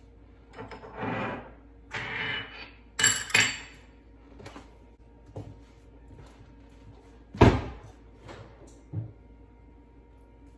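Kitchen cleanup handling on a countertop: two short bursts of rustling, a pair of sharp clinks about three seconds in, a loud knock about halfway through, then a few lighter taps.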